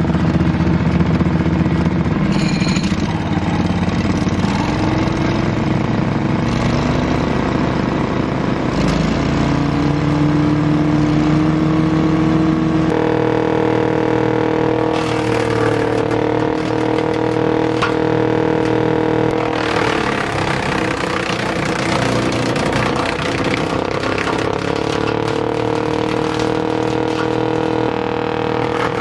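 Wood chipper's 18 HP Briggs & Stratton engine running after a cold start: its pitch climbs over the first dozen seconds, then holds steady at a higher speed. A rougher, noisy clatter joins it about twenty seconds in.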